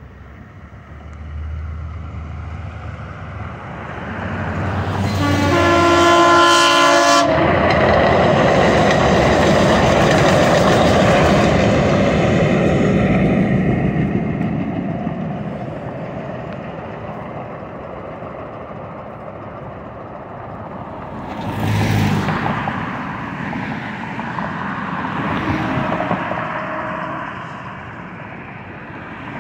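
DART light rail train sounding its horn for about two seconds, then passing with a loud rush of wheels on rail that fades over several seconds. Road traffic passes later, with a brief louder swell about 22 seconds in.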